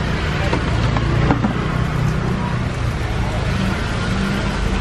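Steady street traffic noise with a low engine hum, and a few light clicks and knocks about a second in.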